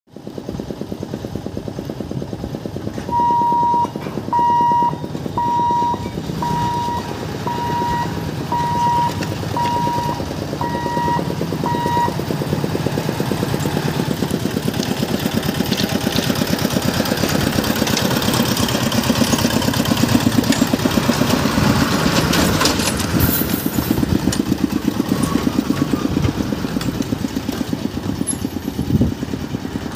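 Road traffic at a level crossing: the engines of a truck, motorcycles and small motor vehicles running and moving across the tracks. From about three seconds in come nine short electronic beeps, one a second.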